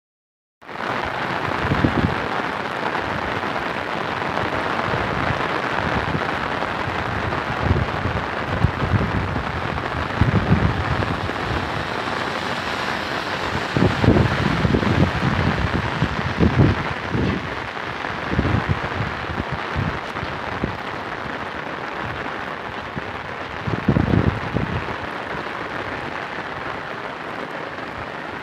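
Heavy rain falling on a concrete road bridge, a steady hiss, with short low rumbles now and then.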